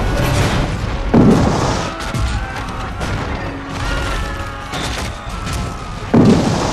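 Two loud cannon booms, about a second in and again near the end, over dramatic film score music.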